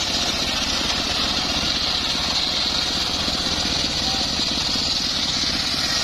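Homemade circular-saw sawmill ripping lengthwise through an acacia log: the big blade makes a steady high whine in the cut over the saw engine's fast, even running.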